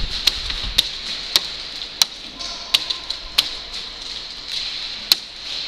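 Airsoft guns firing in single shots, sharp cracks at irregular intervals about half a second to a second apart, over a steady hiss.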